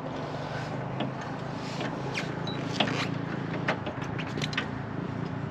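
Scattered metallic clicks and taps of a ratcheting wrench working the top nut of a van's front shock absorber, over a steady low hum.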